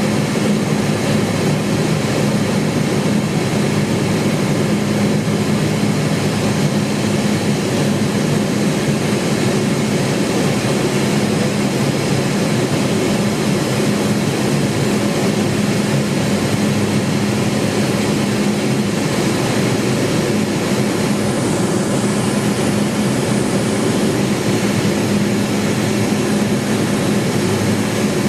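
Cessna 210 Silver Eagle's single turboprop engine and propeller, heard inside the cabin as a steady, unchanging drone: a strong low hum under a broad rush of noise.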